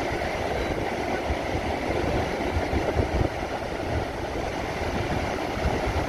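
Ocean surf breaking and washing up the beach in a steady rush, with a low, uneven rumble of wind buffeting the microphone.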